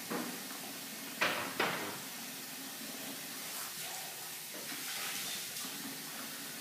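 Dishes being washed by hand at a kitchen sink: a steady hiss of running water with a few sharp clinks and knocks of glassware, the two loudest a little over a second in.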